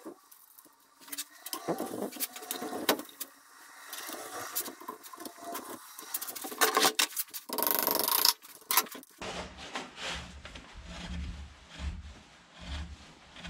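Metal clinks, taps and scrapes of steel parts being handled and fitted: a steel shaft and pinion gear pushed through bearing blocks on a steel plate frame beside a toothed rack. About two-thirds of the way through the sound changes abruptly to a lower, rhythmic rubbing.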